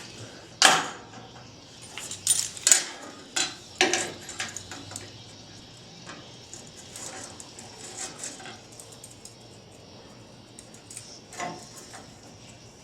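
Sharp metal clanks and clinks of steel parts and tools being handled and set against a steel truck frame: several in the first four seconds, then one more near the end.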